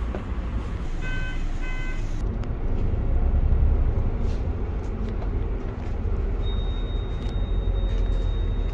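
Bus engine and road rumble heard from inside the moving bus, steady and low. About a second in come two short electronic beeps, and from about two-thirds of the way through a thin high whine.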